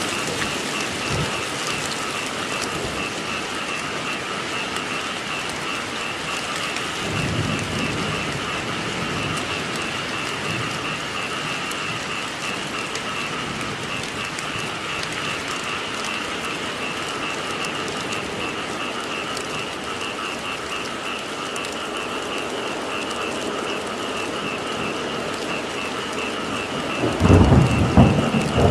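Steady rain falling, with a low roll of thunder about a quarter of the way in and a louder rumble of thunder near the end.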